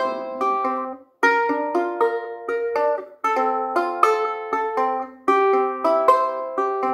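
Resonator ukulele fingerpicked: a melody of quick plucked notes, several sounding together at times, with two brief breaks about a second and three seconds in.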